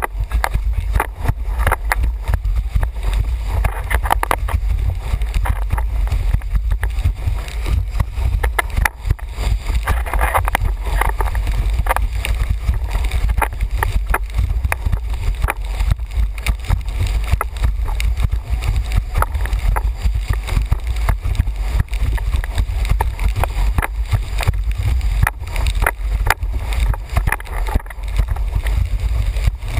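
Windsurf board planing fast over choppy sea, with frequent sharp slaps and splashes of the hull on the chop. Heavy steady wind rumble on the microphone underlies it.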